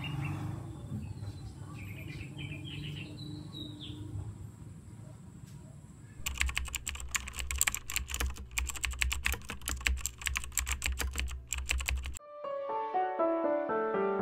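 Birds chirping now and then over a low background rumble, then about six seconds of rapid, dense clicking like fast keyboard typing that cuts off abruptly. Music starts near the end with a run of rising notes.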